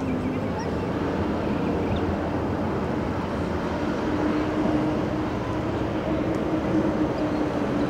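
An engine running steadily at an even pitch, a constant low hum over a wash of noise.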